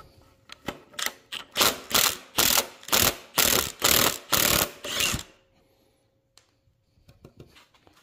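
Cordless Milwaukee Fuel impact wrench on an extension hammering loose a 13 mm exhaust-manifold heat-shield bolt, run in short pulses about twice a second and stopping about five seconds in.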